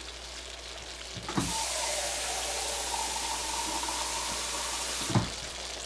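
Kitchen faucet running into an empty food can, filling it with water. The tap comes on sharply about a second and a half in and is shut off about a second before the end, with a knock at each end.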